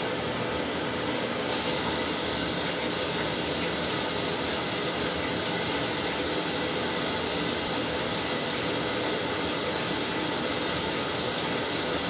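Top-loading washing machine running a wash cycle: a steady churning of water in the tub as the pulsator swirls the soapy load and water streams in from above, with a faint constant hum from the machine.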